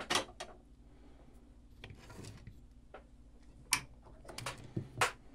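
Small parts and tools being handled and rummaged through on a workbench: scattered sharp clicks and knocks, a brief soft rustle about two seconds in, and a quick run of knocks near the end, over a faint steady hum.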